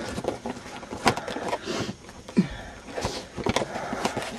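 Handling noise from a handheld camcorder being swung around: irregular knocks and clicks over rustling, with a few louder bumps.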